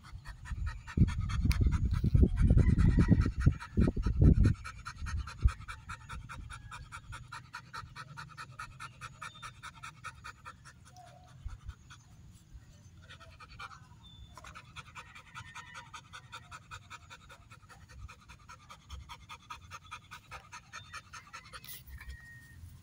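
Belgian Malinois panting rapidly and rhythmically because she is tired, with a pause of a few seconds midway. A low rumble covers the first four seconds.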